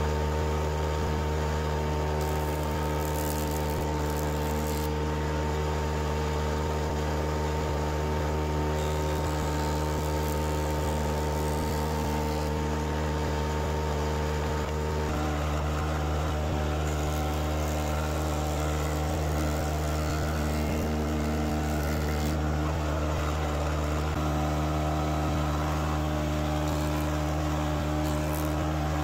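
Jointer running with its cutterhead spinning: a steady, even motor and cutterhead hum.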